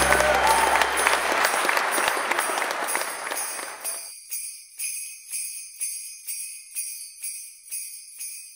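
Applause and music fade away over the first few seconds. Then sleigh bells jingle in a steady rhythm, about two shakes a second, and fade out.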